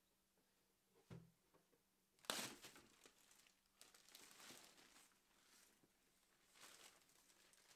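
Clear plastic wrapping bag crinkling and rustling as it is pulled off a padded drone shoulder bag, with a soft thump about a second in and a short sharp burst of crinkling just after two seconds, the loudest sound.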